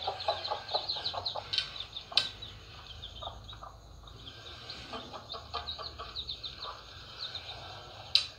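A brood of young birds peeping rapidly and high-pitched, with lower calls from the mother bird beneath. A few sharp, loud sounds cut through, the loudest about two seconds in and near the end.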